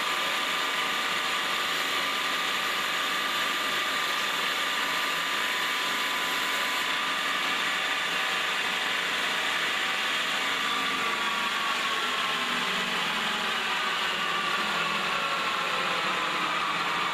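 Automatic wood-leg turning machine (copy lathe) running: a steady motor whine with a high tone that sags slightly in pitch over the last several seconds.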